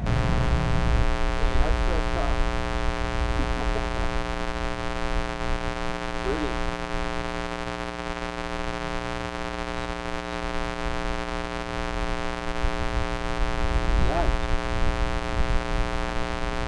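A steady hum made of many fixed tones that never change in pitch, over an uneven low rumble like wind buffeting the microphone.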